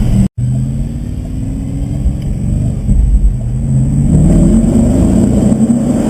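Tuned Audi RS4 engine, with a modified intake and remapped engine, running and revving. After a brief dropout near the start, its pitch climbs steadily for about two seconds, eases off, then builds and gets louder again about four seconds in.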